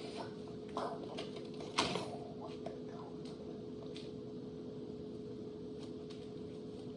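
A few light clicks and taps, the two loudest in the first two seconds and fainter ones scattered after, over a steady low hum.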